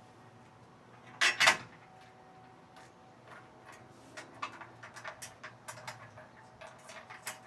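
Two sharp knocks about a second in, followed by a string of light, irregular clicks and taps, from parts and hand tools being handled during assembly of an exercise machine.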